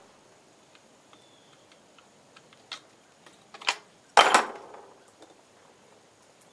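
A single rifle shot from a converted 8mm Carcano M38 firing a cast-bullet load, sharp and loud about four seconds in with a brief ringing tail. Before it come a few faint clicks.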